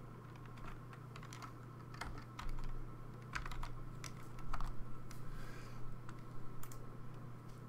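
Irregular keystrokes on a computer keyboard, a few at a time with short pauses, over a low steady hum.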